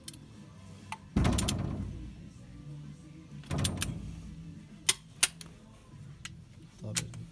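Workshop clanks and clicks of hand tools and metal parts being handled: two louder clattering knocks, each fading off, and several sharp clicks.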